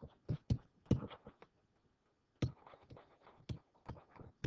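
A pen stylus tapping and scraping on a digital writing surface while words are handwritten: a run of irregular short knocks, with a pause of about half a second near the middle.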